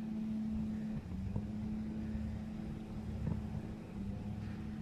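A steady low engine hum holding one pitch, with a slight shift about a second in, and a few faint clicks.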